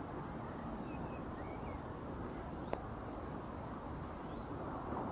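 Steady low background rumble with a few faint, short bird chirps and one small click a little past halfway.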